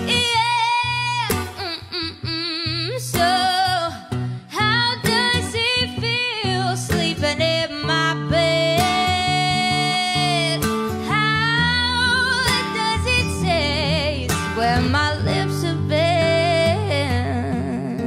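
A woman's voice singing wordless lines with wide vibrato over acoustic guitar, holding one long high note about halfway through.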